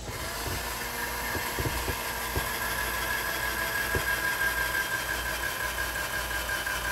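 Cordless drill running steadily as it bores a hole through a plastic trim panel, a continuous motor whine with a few clicks. The battery is weak enough that the drill seems about to die.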